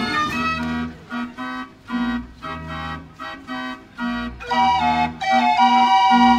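Fairground pipe organ playing a tango: a regular bass beat under short, detached notes, then louder, fuller held chords from about four and a half seconds in.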